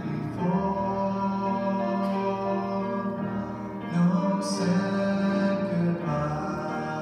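Mixed choir of men's and women's voices singing a hymn in slow, long-held chords.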